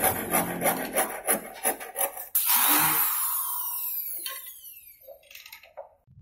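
A hand tool rasping on wood in quick rhythmic strokes, about four a second. About two seconds in the strokes give way to a steadier scraping that fades away.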